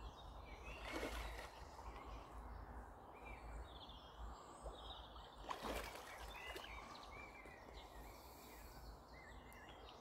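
Two brief splashes at the surface of a lily-pad lake, about a second in and again just past halfway, over faint birdsong.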